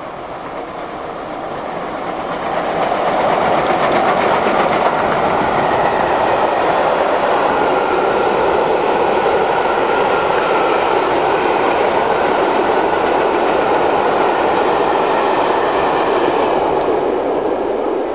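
Steam-hauled passenger train passing close at speed: the four-cylinder Pacific locomotive 6201 Princess Elizabeth goes by, then its coaches follow with a steady rumble and clickety-clack of wheels on rail joints. The sound builds over the first three seconds, holds steady, and starts to fade near the end as the last coach passes.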